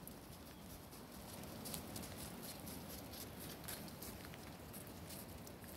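Faint, scattered light ticks and crunches of footsteps on a thin layer of icy snow over dry leaves.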